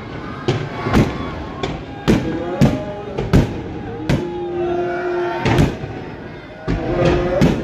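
Fireworks going off: aerial rockets and shells bursting in a rapid, irregular series of sharp bangs, about ten in all.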